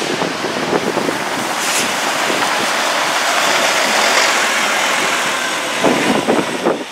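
A three-axle city bus driving close past on a snowy road. The engine and tyre noise swells as it goes by, about three to four seconds in, then fades as it pulls away.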